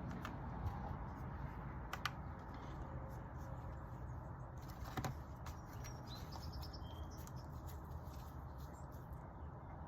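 Light clicks of small plastic and metal parts being handled as O-rings are worked off an oil filter housing, three sharp ones spread over the first half, over a steady low hum. A few faint high chirps come in the middle.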